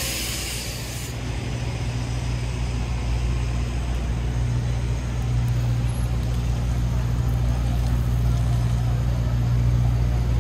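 Street traffic: a large motor vehicle's engine running steadily close by, its drone growing slightly louder toward the end. A loud hiss of air cuts off about a second in.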